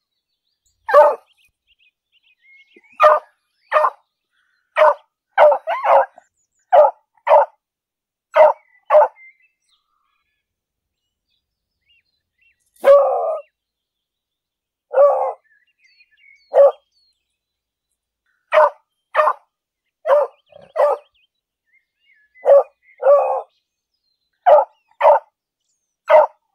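Beagle barking: short, sharp barks, many in pairs about half a second apart. There is a pause of a few seconds near the middle, followed by one longer, drawn-out bark.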